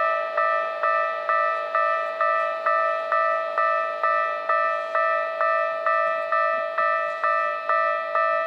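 Japanese railway level-crossing warning bell ringing steadily, a sharp electronic ding-ding of about two strokes a second with each tone dying away, warning that a train is approaching.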